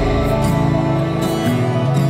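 Soft instrumental background music, with held notes that change about every half second to second.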